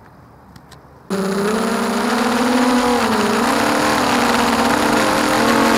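Racing quadcopter's Emax 2204 2300kv brushless motors spinning 6045 bullnose propellers in flight: a loud, steady buzz that starts abruptly about a second in and wavers a little in pitch with throttle.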